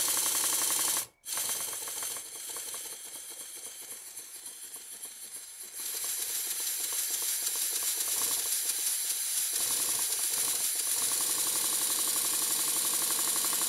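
Stuart Double 10V model steam engine running on compressed air: fast, even ticking of the valve gear and exhaust beats over a steady air hiss. It cuts off abruptly about a second in, turns quieter and more uneven for a few seconds, then picks up into steady running again. Only one cylinder has its slide valve set right.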